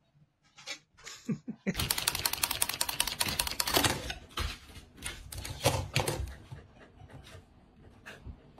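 A corgi's claws rapidly tapping and clattering on a wooden tabletop. A fast, dense run of taps starts about two seconds in and lasts about two seconds, then thins to scattered taps and knocks.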